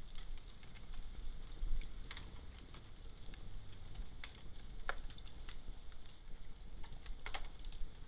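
Wood fire crackling, with sharp pops at irregular moments, a few of them louder, over a low steady rumble.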